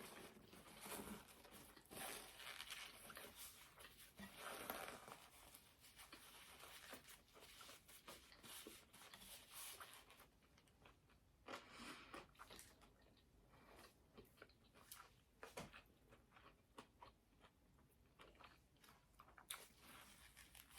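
Faint close-up chewing and crunching of food by a person eating, with irregular crisp crunches and a few louder bites.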